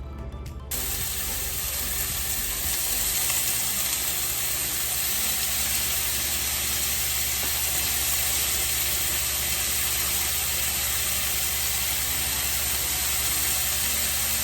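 Sliced cremini mushrooms sautéing in hot olive oil in a frying pan, sizzling steadily. The sizzle starts abruptly under a second in.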